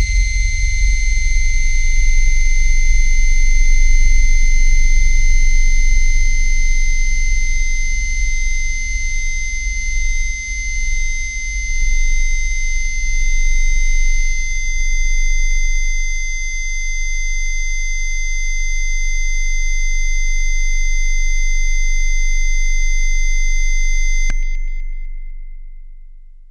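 Synthesized electronic test signal: a loud, deep bass tone near 50 Hz layered with several steady, piercing high tones. About 24 seconds in, the high tones cut off with a click, and the bass fades away.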